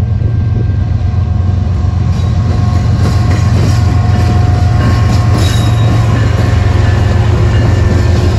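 Two GE diesel-electric locomotives, an ES44C4 leading and a C44-9W trailing, passing close by. Their engines give a heavy, steady drone, mixed with wheel and rail noise, and some high-pitched wheel squeal in the middle. The sound grows slightly louder as the locomotives come alongside.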